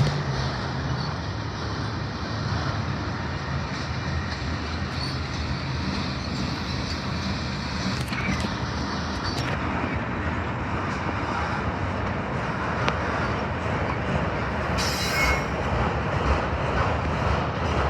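Train rolling past at close range: a steady rumble and rattle of wheels on the rails, with a few sharp clicks.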